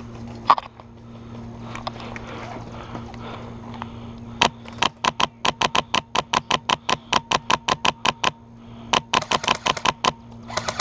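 Airsoft gun firing full-auto bursts of sharp cracks at about seven shots a second. A long burst starts about four seconds in and lasts nearly four seconds. A shorter burst follows a second later, and another begins near the end.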